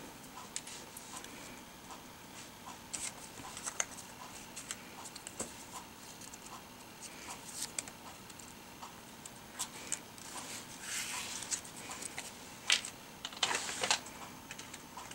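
Light clicks, taps and paper rustling as small card-stock and foil pieces are handled and pressed onto a paper card on a cutting mat. The clicks are scattered, with a few louder rustles about ten to fourteen seconds in.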